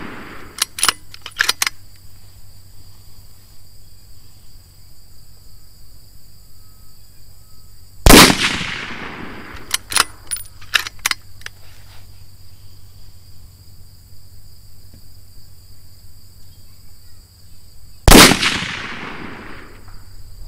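Two rifle shots from a customized bolt-action Ruger Precision Rifle, about ten seconds apart, each with a ringing tail that dies away over a second or two. Quick runs of sharp metallic clicks, the bolt being worked to chamber the next round, come just after the start and again a couple of seconds after the first shot.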